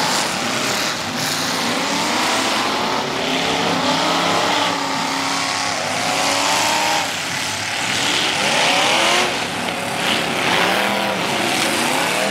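Several figure-8 race cars' engines revving hard and easing off, their overlapping pitches sweeping up and down.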